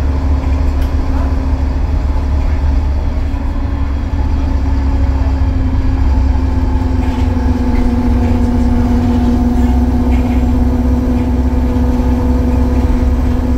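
Optare MetroCity single-deck bus under way, its Euro 6 diesel and Allison automatic driveline giving a steady low drone with a steady whine over it that grows a little louder partway through.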